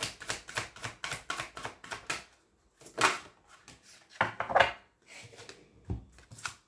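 A deck of oracle cards being shuffled by hand: a quick run of card flicks and slaps, then a few separate louder riffles and taps as cards are drawn from the deck.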